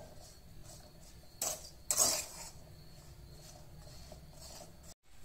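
Metal spatula scraping and knocking against a metal kadhai while stirring powdered sugar into a dry, crumbly roasted mawa mix, with two louder strokes about a second and a half and two seconds in.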